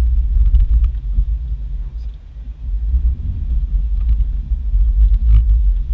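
Uneven low rumble of an off-road vehicle creeping along a deep-snow trail, with a few faint scattered knocks.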